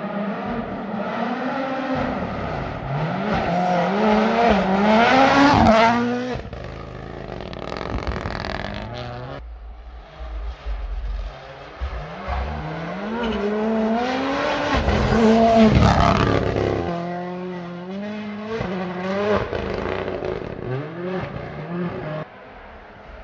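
Toyota Yaris rally car's turbocharged four-cylinder engine revving hard through the gears, its pitch climbing and dropping with each shift. The sound swells and fades twice, loudest about 5 and 15 seconds in.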